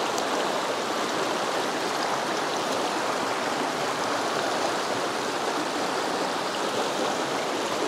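Mountain river running fast over rocks: a steady, even rush of water.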